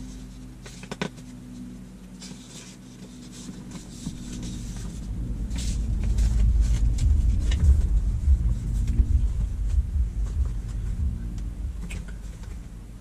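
A low vehicle rumble swells from about four seconds in, is loudest in the middle and fades away near the end, over a steady low hum. A sheet of paper rustles briefly a couple of times.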